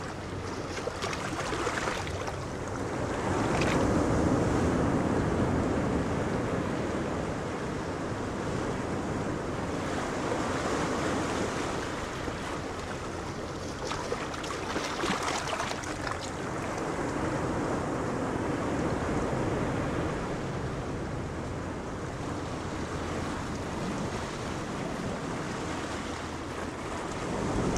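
Wind gusting across the microphone over the noise of choppy sea, with a faint low drone from the engine of a small fishing boat out on the water.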